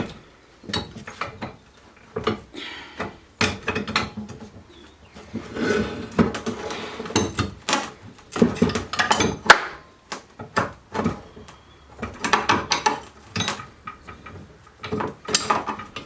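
Metal parts of a Record No. 23 vice clinking, knocking and scraping as they are worked loose and handled during strip-down, in irregular clusters of clatter, loudest a little past halfway.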